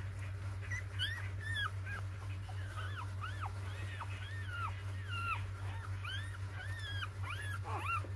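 Four-day-old puppies whimpering and squeaking: a quick string of short, high-pitched cries that rise and fall, about two a second, starting about a second in.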